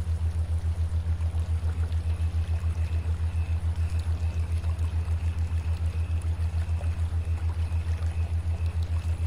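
A low droning hum that pulses evenly several times a second, with a faint higher tone coming and going above it: a meditation-music drone.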